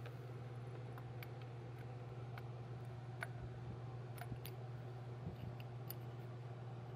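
A few scattered light metallic clicks as a spark plug socket and extension knock in the spark plug well while a new spark plug is threaded in by hand, over a steady low hum.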